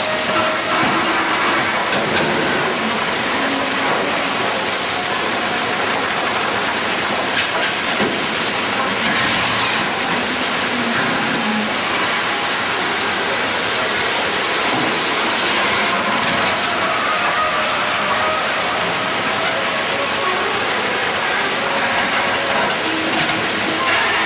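A gold dredge's bucket line running, with water and gravel pouring off its steel buckets: a loud, steady rush over the machinery.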